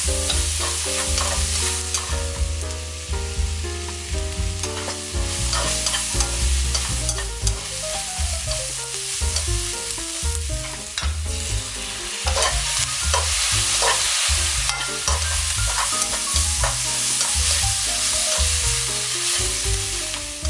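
Fish cake and vegetables stir-fried in oil in a pan: a steady sizzle with the clicks and scrapes of stirring. A low run of changing musical notes plays under it.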